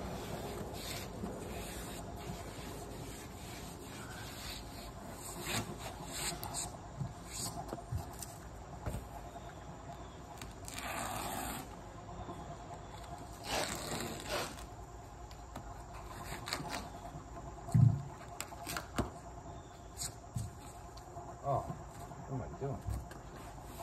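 Foam padding sheets rubbing and scraping against the concrete pool steps as they are laid and smoothed by hand, in scattered short scrapes with a couple of longer ones and a single louder thump past the middle.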